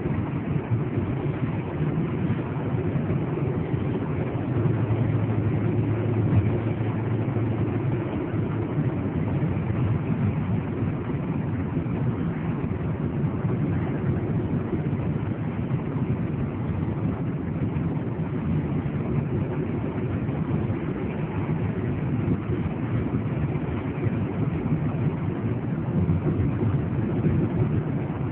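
Car engine and tyre drone heard from inside the cabin while driving at road speed: a steady low rumble, with a slightly stronger low hum between about four and eight seconds in.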